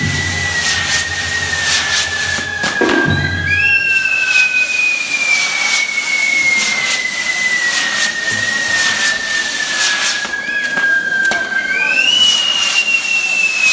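Whistling fireworks burning on a pyrotechnic castillo: a long shrill whistle slowly sinks in pitch, and a fresh, higher whistle takes over about three and a half seconds in and again near the end, over steady crackling of sparks.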